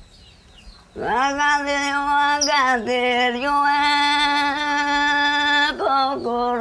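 A lone voice singing a funeral lament: one long held note that slides up into pitch about a second in, dips briefly, then holds steady, followed by a shorter sung phrase near the end.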